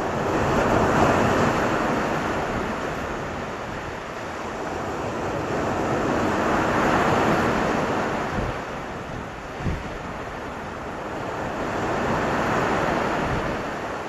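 Sea surf breaking and washing up a sandy beach among rocks, three waves swelling in and draining back one after another.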